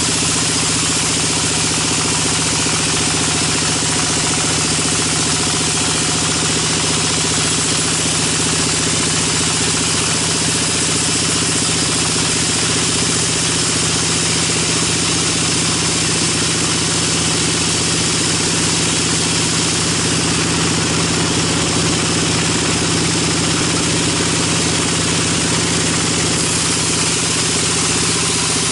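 Sawmill band saw running steadily while its blade rips lengthwise through a log: a constant machine hum under the hiss of the cut.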